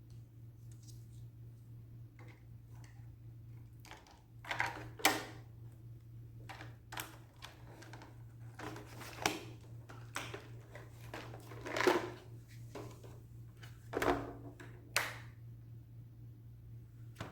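Irregular knocks and clicks of household objects being handled, over a steady low hum.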